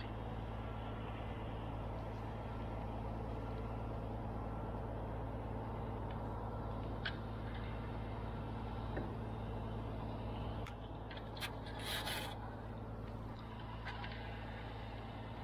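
Mobile crane's diesel engine running steadily, a low drone that eases slightly about ten seconds in, with a few short clicks near the end.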